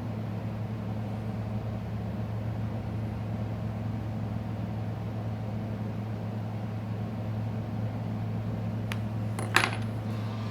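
Steady low mechanical hum, with a faint click and then a short sharp tap near the end.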